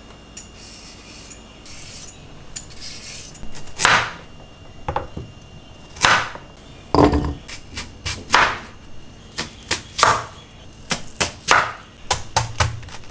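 Chef's knife chopping on a bamboo cutting board, slicing carrot and then cabbage: sharp single strikes about a second apart that come quicker near the end. Softer handling sounds come before the first cut, about four seconds in.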